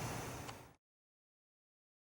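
Faint room noise dying away within the first second, then dead silence.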